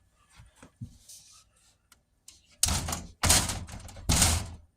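Storm door being pushed shut against its frame three times in quick succession, loud knocking rattles, with a few light clicks of the latch hardware before them.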